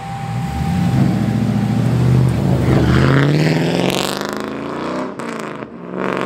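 LS V8-swapped Nissan 240SX accelerating hard away, the engine revving up loudly with its pitch climbing steeply. There is a brief drop about five seconds in, and then it climbs again.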